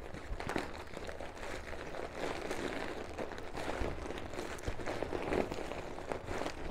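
Thin vinyl of a Solar Sun Ring pool disc crinkling and rustling in irregular crackles as hands scrunch it. The scrunching forces trapped air through the inner channels to separate plastic layers that are stuck together.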